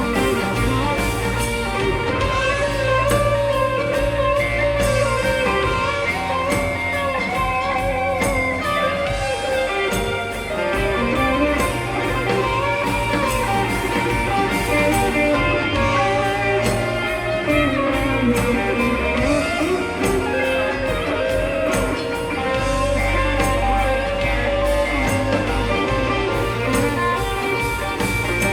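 Blues-rock band playing an instrumental passage: an electric guitar lead with bent, sliding notes over bass and drums.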